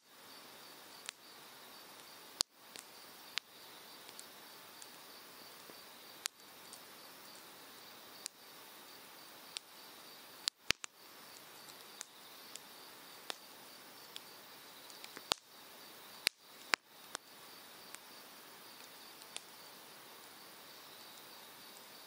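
Japanese cedar firewood crackling in an open fire, with sharp pops scattered throughout and the loudest pops in a cluster past the middle. Behind it runs the steady rush of a mountain stream, with a high, pulsing insect trill.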